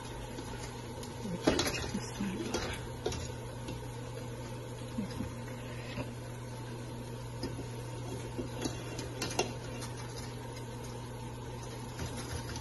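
Boiled rice tipped from a stainless-steel colander into a steel cooking pot: a few sharp metal knocks and scrapes of the colander against the pot, the loudest about a second and a half in, over a steady low hum.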